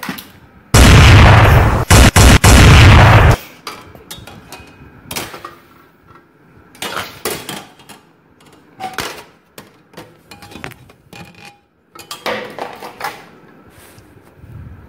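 A loud, harsh rushing blast of noise lasting about two and a half seconds, cutting out briefly twice, followed by scattered light knocks and clacks of toys and the camera being handled.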